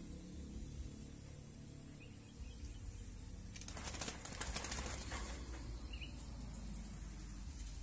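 A caged dove flapping its wings in a brief flurry of rapid wingbeats, lasting under two seconds about halfway through.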